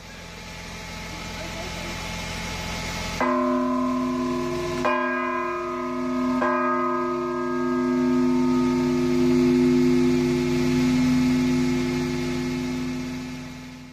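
Amatrice's civic tower bell, hanging free from a crane, struck three times about a second and a half apart and ringing on with a long, steady hum. A rising noise comes before the first stroke.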